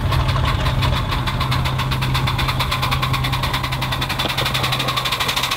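Full-size diesel locomotive idling with a steady low hum, mixed with the rapid, even exhaust beats of a miniature ride-on steam locomotive drawing near.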